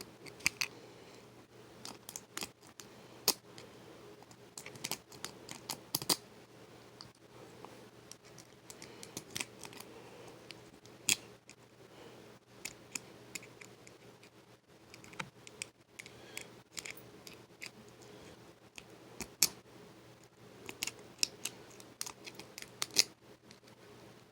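Lock pick and tension wrench working in the keyway of a laminated steel padlock: irregular small metallic clicks and scrapes as the pins are raked and set, with a few sharper clicks standing out.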